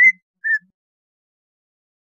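Greater green leafbird (cucak ijo) singing: two short whistled notes about half a second apart, the first slightly rising, followed by a pause in the song.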